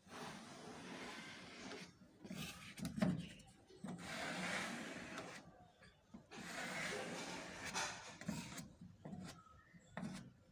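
Sandpaper rubbed by hand over a puttied, painted van door panel in long back-and-forth strokes: a rasping rub lasting a second or more at a time, with brief pauses between strokes.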